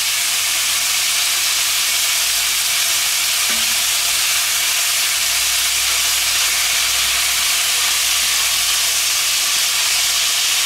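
Chunks of meat frying in a pot, a steady sizzle, as a wooden spatula stirs them while they brown.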